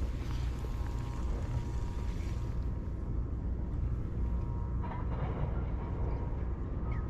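Steady low rumble of wind buffeting the microphone at the shore, with waves washing in underneath.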